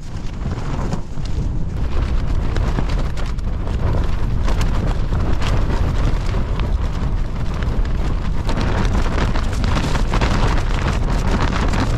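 Gale-force wind buffeting a Fjallraven Abisko Lite 2 tent: a heavy deep rumble with a dense crackle on top, building over the first couple of seconds and then staying strong.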